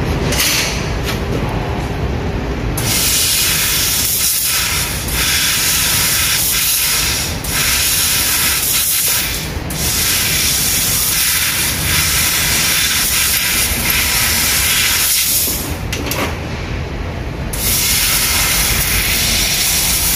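Handheld laser welder in cutting mode cutting 1.5 mm stainless steel: a loud steady hiss of the gas jet from the cutting nozzle starts about three seconds in. It breaks off briefly a few times and for a second or two near the end, over a lower steady machine hum.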